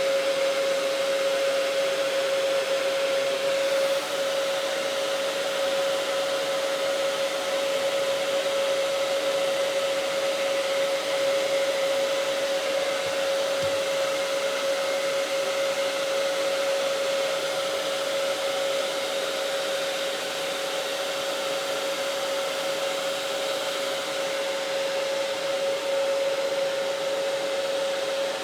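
Hair dryer running steadily with a constant whine, blowing hot air onto adhesive grip tape on a pistol frame to set it.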